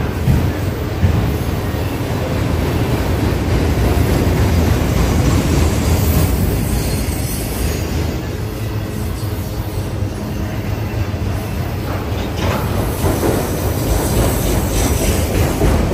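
Empty Union Pacific autorack freight cars rolling past: a steady rumble of steel wheels on the rails.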